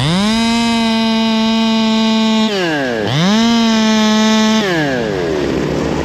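Small two-stroke top-handle chainsaw revved twice to full throttle: it screams up and holds high for about two and a half seconds, dips, revs up again for about a second and a half, then drops back to idle.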